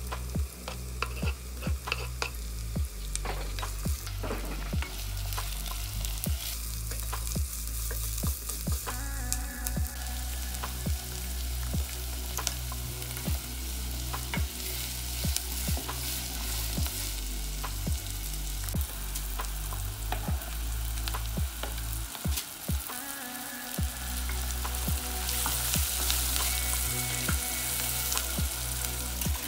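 Chopped red onion sizzling in hot oil in a nonstick pot while a wooden spoon stirs it, knocking and scraping against the pot many times. The sizzle gets louder near the end.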